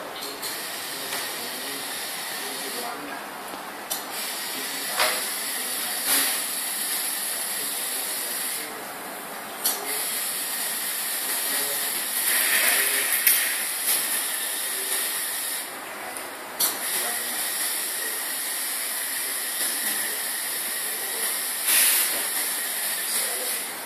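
Small electric drive motor and gears of an RC-car-based robot running as it drives itself, a steady whirring hiss that stops briefly three times, with a few sharp clicks.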